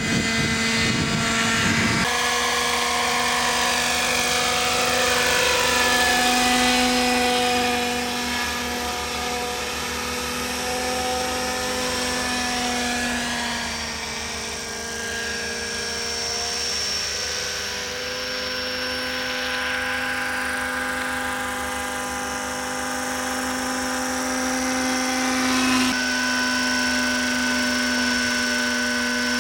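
Radio-controlled scale model helicopters flying: a steady high whine of motor and rotors with several pitched tones, sliding in pitch as a model passes. The sound changes abruptly about two seconds in and again near the end.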